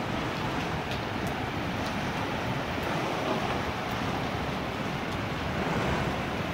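Heavy rain pouring steadily in a thunderstorm with strong wind, the gusts buffeting the microphone as a dense, even rush of noise.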